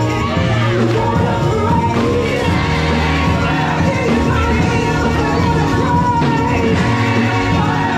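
Live gospel worship song: a woman sings lead into a microphone over full, steady music.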